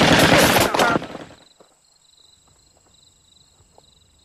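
A loud burst of rapid gunfire, shot after shot, that stops about a second in and leaves near-quiet with a faint steady high tone.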